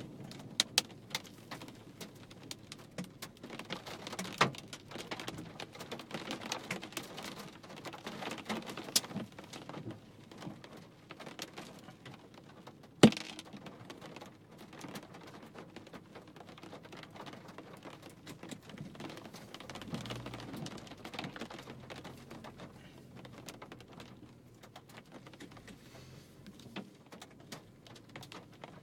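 Hailstones striking a hard surface, irregular sharp clicks and knocks over a patter of rain, densest in the first ten seconds and thinning out later, with one much louder crack about 13 seconds in.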